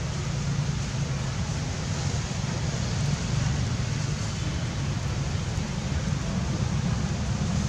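Steady rushing outdoor noise with a low rumble and no distinct events.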